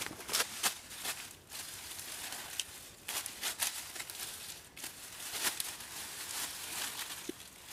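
Dry leaf litter and twigs crunching and crackling under footsteps and grabbing hands, an uneven run of short crackles and rustles.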